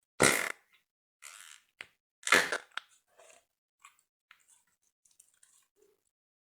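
Slime being squeezed and pressed by hand: three short crackling squishes, the first and last loudest, then a few faint clicks.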